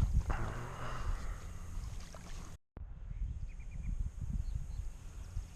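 Wind buffeting the microphone, a low uneven rumble over the rush of the river. The sound cuts out completely for a moment about halfway through.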